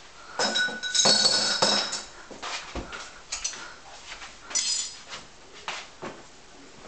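Dishes being washed by hand in a kitchen sink: plates, glasses and cutlery clinking and knocking together. A burst of ringing clinks comes about a second in, another near the middle, then lighter knocks.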